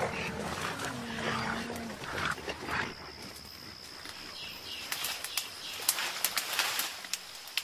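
Young mountain gorillas playing in dense undergrowth: a low held grunting call in the first couple of seconds, then rustling and sharp crackles of twigs and leaves. A thin steady high whine sets in about three seconds in.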